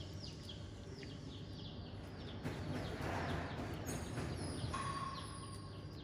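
Repeated short, high falling chirps from animals, over a steady background hiss. A few higher whistled glides come in about four seconds in.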